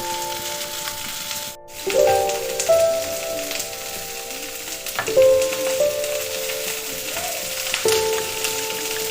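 Food sizzling as it fries in hot oil in a pan, with soft background music of held notes that change every two or three seconds; the sound drops out briefly about a second and a half in.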